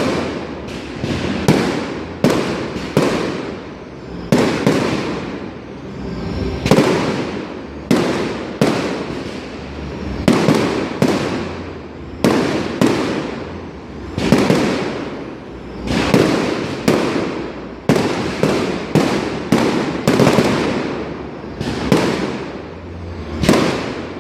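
Aerial firework shells bursting one after another, about one sharp bang a second, each trailing off in a fading rumble before the next.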